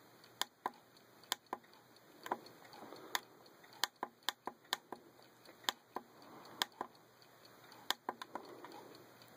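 Plastic buttons of a cheap digital alarm clock clicking as they are pressed over and over to step the time setting, sharp single clicks at uneven intervals, sometimes two or three in quick succession.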